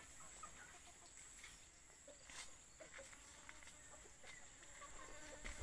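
Near silence: faint outdoor ambience with a few faint, short poultry calls and a few soft clicks.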